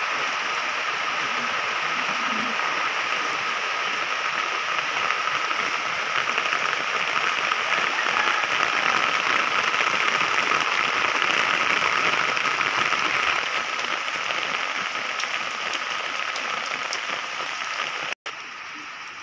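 Steady rain falling on plants and wet ground. It is a little heavier in the middle and eases over the last few seconds, with a momentary dropout near the end.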